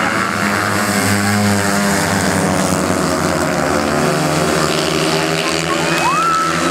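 Several 350cc speedway solo motorcycles racing on a dirt oval. Their engines run hard together, the pitch rising and falling as they are throttled through the laps.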